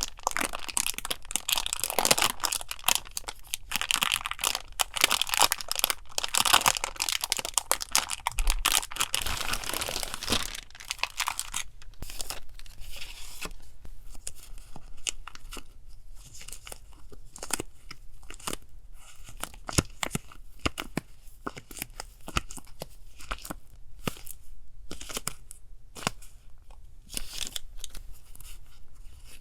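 Paper and plastic wrapping being torn and crinkled by hand, with dense continuous rustling for about the first twelve seconds, then sparser rustles and light clicks.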